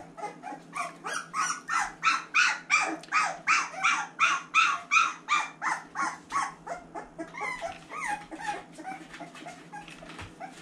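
Boxer puppy about three and a half weeks old crying in a quick run of short, high-pitched cries, about three a second. The cries are loudest in the middle and trail off near the end.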